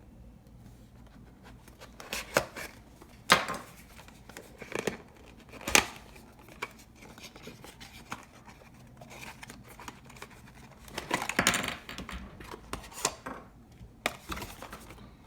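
Packaging of a GoPro head strap being torn open and handled: irregular rips, rustles and sharp snaps, in two busy spells with quieter handling between.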